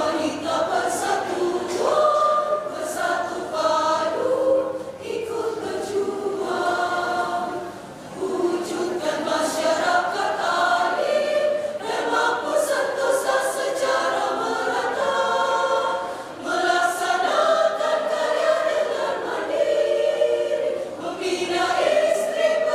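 Women's choir singing a song in parts, in long sustained phrases with a short breath between phrases about eight seconds in.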